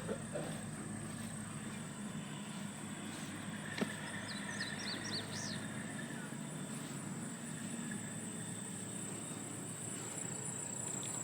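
Rural outdoor ambience: a steady high insect drone like crickets over a low, even background rumble, with a short series of bird chirps about four seconds in.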